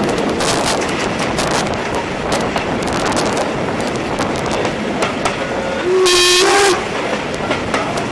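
Heritage train coach running along the track, wheels clicking over the rail joints. About six seconds in, the steam locomotive's whistle gives one short blast, the loudest sound here.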